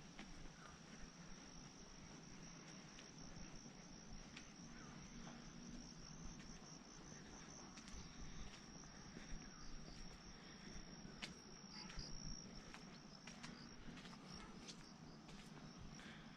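Insects trilling in one steady high-pitched note, fading about three-quarters of the way through, with faint scattered clicks.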